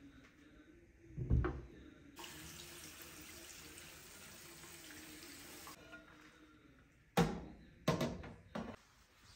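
Tap water running into a kitchen sink for about three and a half seconds while an oven tray is rinsed. A dull thump comes about a second in, and three sharp knocks near the end.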